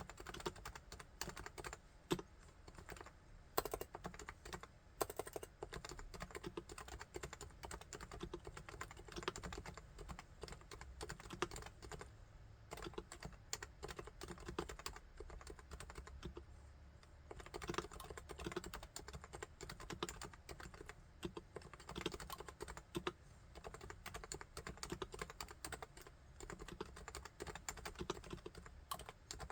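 Typing on a Topre Realforce R3 keyboard with its electrostatic capacitive Topre switches: a steady stream of quick keystrokes, with a brief let-up a little past halfway.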